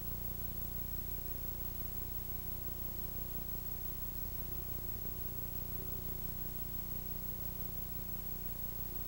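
Steady low electrical hum under even hiss: the background noise of a multi-generation VHS recording, with no work sounds standing out.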